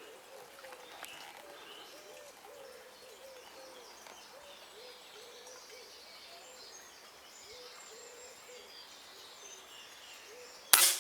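Quiet early-morning birdsong: a bird cooing over and over in short low calls, with fainter songbirds higher up. Near the end comes a single sharp airgun shot.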